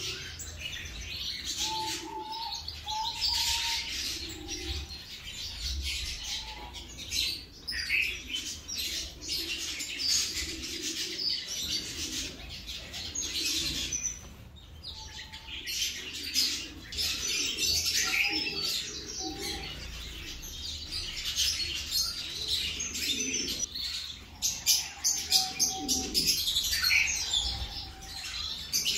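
Birds chirping without a break, many short overlapping chirps, with now and then a few shorter, lower calls.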